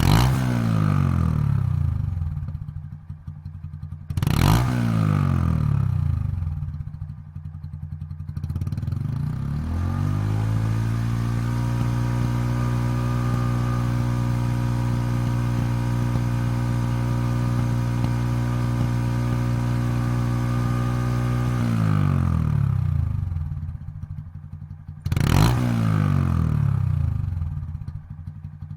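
Honda Monkey's single-cylinder four-stroke engine breathing through a Yoshimura Straight Cyclone full exhaust system, revved in stationary blips that fall back to idle. After two quick blips it is raised and held at a steady higher rev for about twelve seconds, drops back to idle, and is blipped again near the end.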